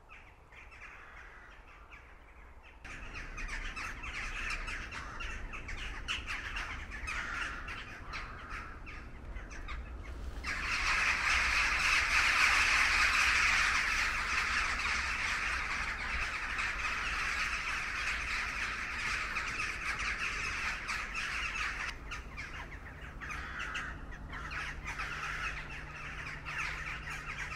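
A large flock of corvids cawing together, a din of many overlapping calls that swells sharply about ten seconds in and then carries on.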